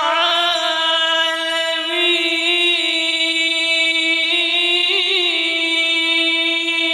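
A man's voice holding one long, high melodic note in the drawn-out style of Quran recitation, with brief wavering turns near the start and about five seconds in.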